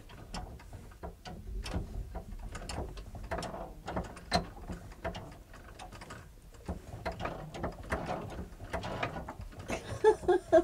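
Antique 1880 treadle sewing machine being pedalled, its leather belt drive and mechanism clicking and clattering unevenly, about two to three knocks a second. A few louder, short sounds come near the end.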